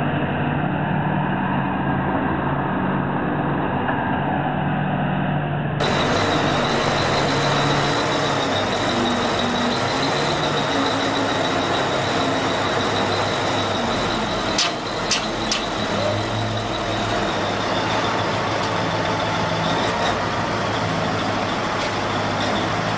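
Diesel engines of heavy wheel loaders running steadily under load while pushing a large stone block. Three sharp knocks come in quick succession near the middle.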